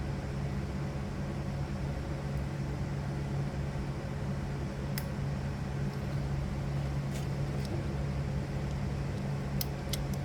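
Steady low mechanical hum in the room. A few light clicks of small metal parts come about halfway through and again near the end, as the clips and parts of a pinball score reel are handled during reassembly.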